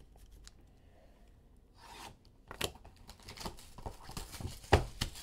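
Clear plastic wrapper on a trading-card pack being torn open and crinkled by hand, starting about two seconds in, with a sharp rip of plastic near the end as the loudest moment.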